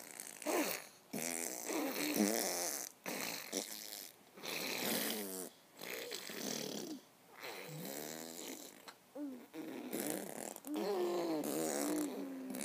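A man and a baby blowing raspberries: a string of short buzzing lip trills, about ten of them, with brief pauses between.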